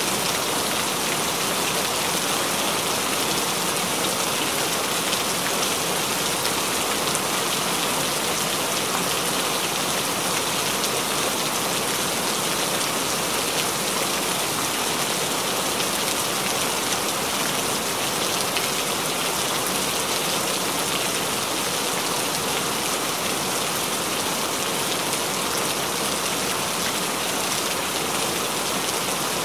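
Steady rain falling, an even, unbroken hiss that neither swells nor fades.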